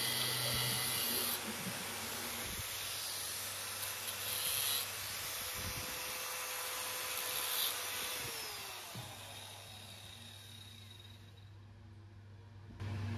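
Bosch GWS 6-100 angle grinder, its head bearing newly replaced, running with no load, then switched off and spinning down, its whine falling in pitch about eight seconds in.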